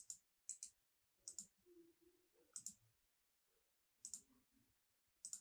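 Faint computer mouse button clicks: about six quick pairs of clicks, spaced a second or so apart.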